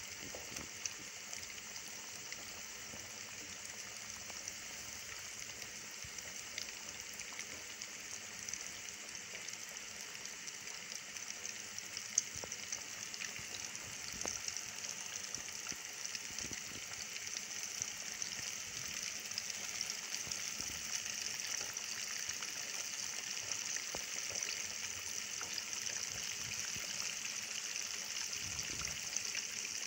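Flour-coated boneless chicken strips deep-frying in hot oil: a steady sizzle of bubbling oil that grows a little louder in the second half, with one sharper pop near the middle.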